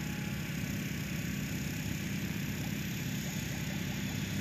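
Radio-controlled model helicopter in flight, its motor and rotor blades making a steady drone.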